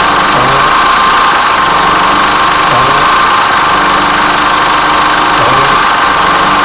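Chevrolet S10's 2.8 four-cylinder turbodiesel running hot at idle, with a brief strange noise that recurs about every two and a half seconds, as at light touches of the accelerator. A GM mechanic put it down to a valve that opens on acceleration, normal when accelerating but not at idle.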